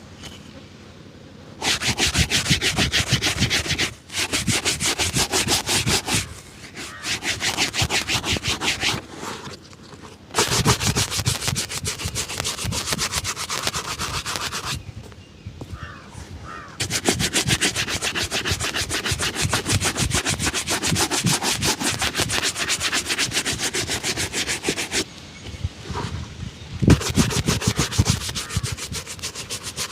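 Rapid back-and-forth buffing strokes on a leather shoe during a shoe shine, coming in spells of a few seconds with short pauses between.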